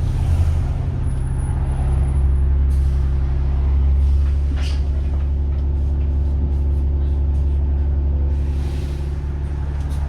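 Diesel bus engine running steadily on the move, heard on board, with a brief thin high whine about a second in. Air hisses from the pneumatic brakes come near the start and again about nine seconds in, with a few sharp rattles.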